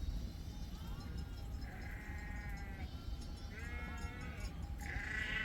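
A flock of sheep bleating: several animals call one after another, the calls overlapping, with the loudest call near the end.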